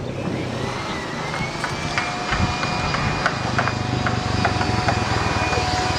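A motor running with a low, even hum and a whine that rises over the first couple of seconds and then holds steady, with scattered clicks.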